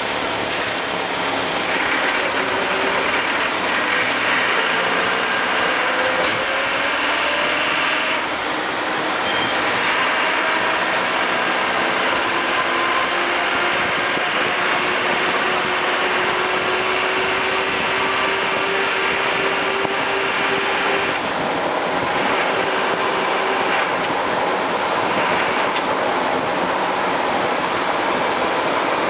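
Land Rover Defender 110 on the move: steady drivetrain and road noise, with a whining tone that slowly rises and falls in pitch.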